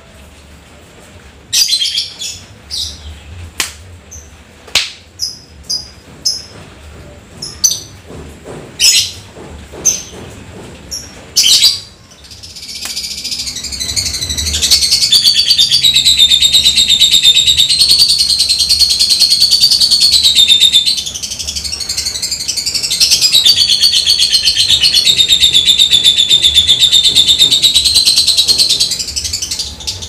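Caged lovebird singing in full voice: first a run of short, sharp ticking chirps about a second apart, then, about twelve seconds in, a long rapid chattering trill (the drawn-out 'ngekek'). The trill holds for several seconds, breaks off briefly, and starts again.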